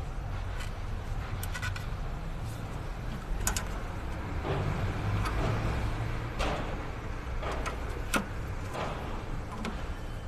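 Hands working at hoses and fittings in a truck's engine bay: a scattering of short sharp clicks and knocks from parts and tools being handled, the loudest about three and a half and eight seconds in, over a steady low rumble.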